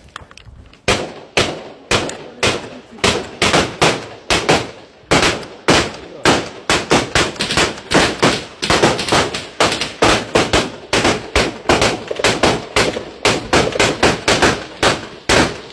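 Small-arms gunfire: a long run of sharp shots fired in quick, irregular succession, about two to three a second, each followed by a short echo.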